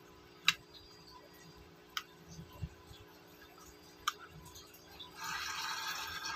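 Sharp plastic clicks as the end cover of a Sonoff Wi-Fi switch is pressed back onto its casing: three distinct snaps about a second and a half to two seconds apart, the first the loudest. A steady hiss starts about five seconds in.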